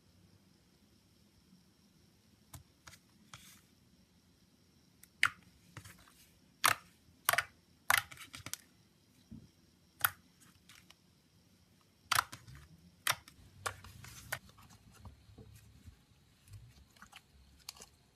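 Slime being squeezed and pressed by hand, giving irregular sharp clicks and pops, most of them in a busy stretch through the middle.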